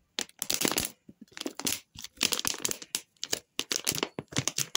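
Thin plastic water bottle crinkling and crackling in repeated irregular bursts as it is squeezed to push thick shaken coffee foam out into a glass.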